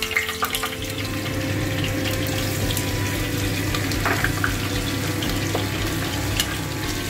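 Whole spices and green chillies sizzling in hot oil in a pressure cooker. A brief louder splash of sizzle comes about four seconds in, as sliced onions go into the oil, and a spoon stirs and clicks against the pot near the end.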